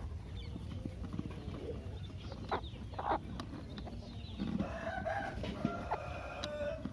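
Country chickens clucking and calling, with short calls early on and a longer, drawn-out call with several held pitches from about four and a half seconds in.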